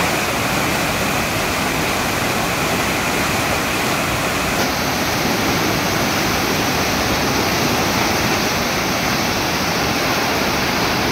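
Swollen floodwater of the Saraswati river rushing and churning around stone temple pillars: a steady, dense rush of turbulent water. The highest hiss drops away about four and a half seconds in.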